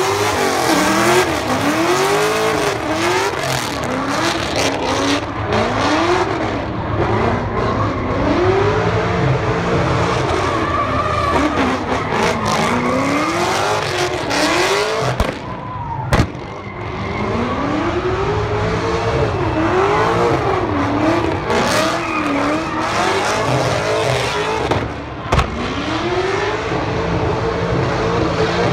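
V8-swapped Nissan 200SX S13's GM LS7 engine revving hard while drifting, the revs rising and falling in repeated surges every second and a half to two seconds, over the hiss and squeal of sliding tyres. One sharp crack about halfway through.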